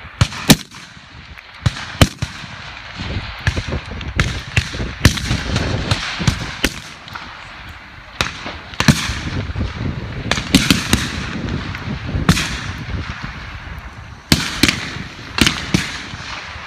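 Rifle shots from a line of prone target shooters firing 7.62 mm single-shot bolt-action target rifles: about a dozen sharp cracks at irregular intervals, each with a brief echo, over wind rumbling on the microphone.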